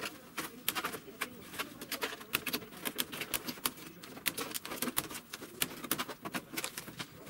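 Snap-in plastic latches of a Samsung UE49NU7171 TV's back cover clicking and cracking one after another as the cover is pried off by hand: a quick, irregular run of sharp clicks.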